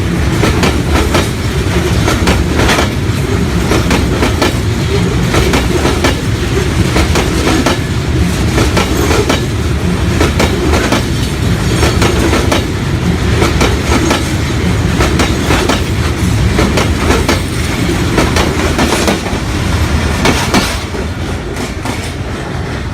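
Train running along the track: a steady loud rumble with the wheels clattering over the rail joints, easing off slightly near the end.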